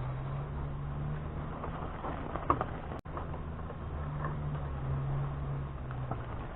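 An engine running steadily at a low idle, a low hum whose pitch drifts slightly up and down, with a few light clicks.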